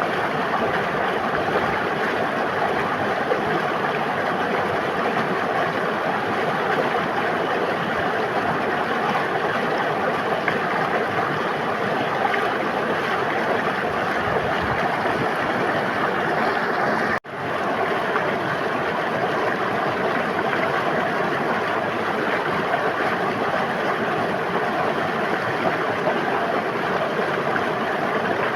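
River water flowing and babbling in a steady rush. About two-thirds of the way through it cuts out for an instant and comes straight back.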